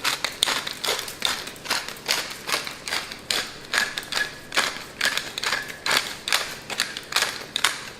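Pepper grinder being twisted over fish, a quick rhythmic run of grinding clicks, about four a second, with a faint squeak in the middle.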